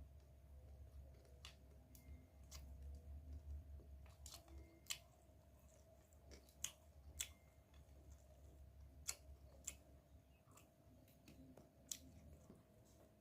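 Quiet close-up chewing of crispy fried rice-field crabs, with about a dozen sharp, irregular crunches of the shell.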